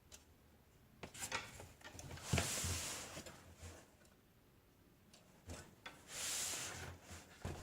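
Faint handling sounds from a 1962 Olympia SM5 manual typewriter: scattered light clicks and two brief sliding rubs, about two seconds in and again about six seconds in.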